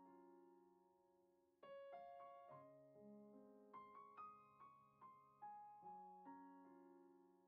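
Quiet background piano music: slow, gentle notes that ring and die away, with a short lull about a second in before the phrase resumes.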